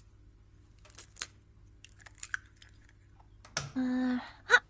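Two eggs being cracked and dropped into a bowl: scattered light taps and clicks, a short steady tone about four seconds in, then a sharp louder click near the end.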